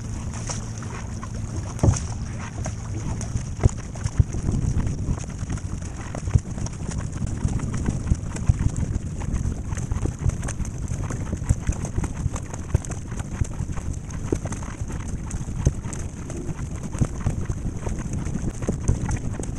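Paddle strokes from a double-bladed paddle splashing into the sea beside a racing surfski, with water washing along the hull and wind buffeting the microphone. A low steady hum fades out in the first few seconds.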